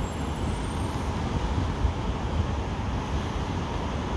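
Steady, distant roar of a McDonnell Douglas MD-11F freighter's jet engines heard from far across the airfield, with wind rumbling on the microphone.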